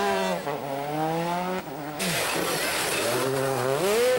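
A rally car's turbocharged four-cylinder engine under hard acceleration. Its pitch climbs and drops at a gear change, and after a sudden break about halfway it climbs again near the end.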